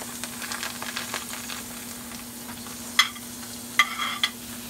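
Chopped onions, celery and bell pepper sizzling in hot dark roux in a cast iron skillet. A metal spoon clinks sharply a few times in the last two seconds as the vegetables are scraped off the plate into the pan.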